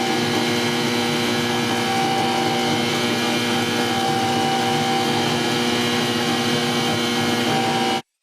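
A small electric motor, as in a power tool, running steadily at a constant pitch, then cutting off suddenly near the end.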